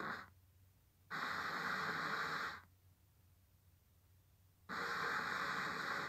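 Chinese digital audio module's FM radio on auto-search, stopping on each found station for about a second and a half and going quiet while it scans on. The stations come through as hissy, poor-reception bursts: one cuts off just after the start, one runs from about one to two and a half seconds in, and another starts near five seconds in.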